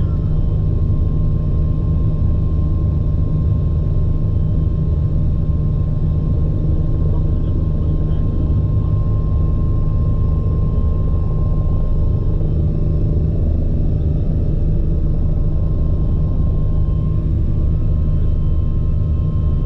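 Bell 429 twin-turbine helicopter running steadily: a constant deep drone from the rotor and engines with a thin, even high whine above it.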